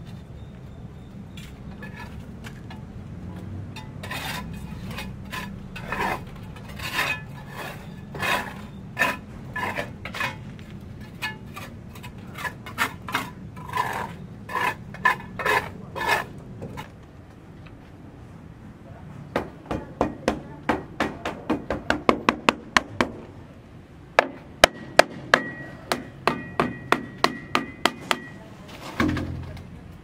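Hammering: a run of steady blows at about two a second, then after a short pause a faster run of sharper blows, a few of them leaving a brief ringing tone.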